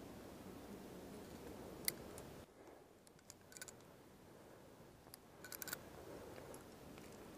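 Faint metallic clicks of a climbing quickdraw's carabiners at a bolt hanger as the quickdraw is clipped and the rope pulled up to it. There is one sharp click about two seconds in, then a few small clicks and a quick cluster of clicks past the middle.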